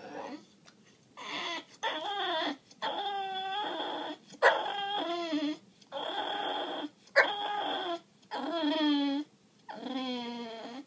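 English bulldog whining and crying in about eight drawn-out, wavering calls of a second or so each, with short gaps between them: begging cries.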